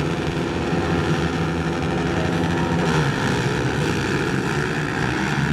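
A pack of racing quads (ATVs) revving at the starting gate and accelerating away as the race starts, many engines running together as one loud drone that grows brighter about halfway through.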